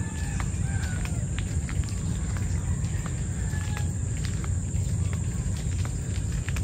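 Rural outdoor ambience: birds chirping now and then over a steady high insect buzz, with scattered short ticks. A steady low rumble underneath is the loudest part.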